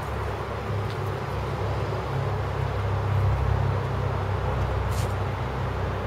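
Chevrolet Caprice wagon's V8 idling through Hedman headers and a Magnaflow exhaust, a steady deep burble that swells a little about two seconds in. The exhaust leak is mostly repaired, leaving the note fairly quiet.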